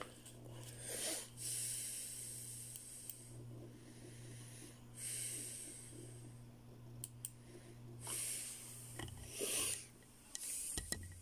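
A man breathing close to the microphone: several slow, airy breaths a few seconds apart, over a steady low electrical hum, with a few small clicks.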